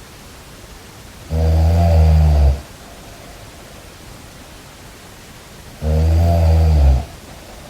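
Snoring: two loud, low snores, each about a second long and some four seconds apart, over a steady hiss.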